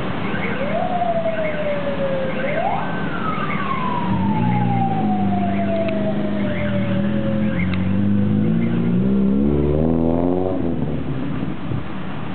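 A car-mounted siren wailing: it rises, dips, then shoots up sharply and falls slowly over about five seconds. Under it a car engine revs up and down several times, climbing sharply near the end.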